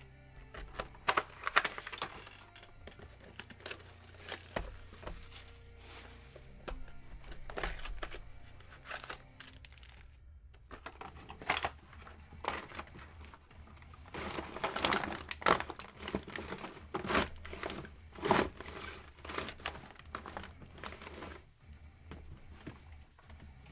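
Plastic-wrapped trading-card boxes being handled and stacked, their wrappers crinkling in irregular bursts.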